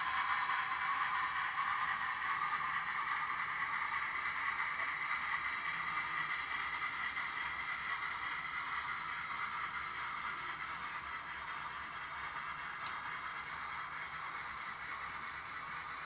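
HO-scale model freight cars rolling over the track, a steady rattling whir with a thin high tone, slowly fading as the train moves off. A faint tick near the end.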